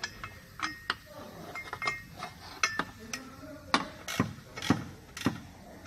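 Irregular metal clinks and knocks of hand tools and metal parts while the driveshaft is fitted to a Porsche 996 Turbo's underside, a few of the strikes ringing briefly.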